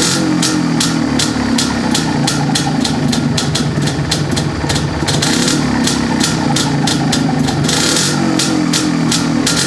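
MZ ETZ motorcycle's single-cylinder two-stroke engine running at idle on its first start after a full rebuild, breathing through a stock exhaust.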